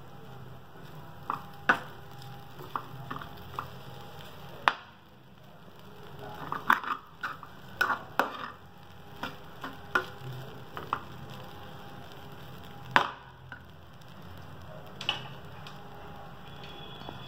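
Metal spoon stirring poha in a steel pan, with irregular sharp clinks and scrapes of the spoon against the pan, thickest in the middle.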